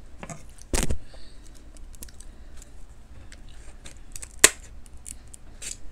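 Kitchen scissors cutting into the shell of a cooked king crab leg: a string of small crackling clicks, with one sharp crack of the shell about four and a half seconds in. A dull thump comes about a second in.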